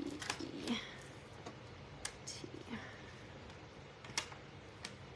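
Light clicks of thin wooden cutout letters being set down and slid into place on a tabletop, a few sharp separate ticks a second or two apart. A soft voice spells out letters partway through.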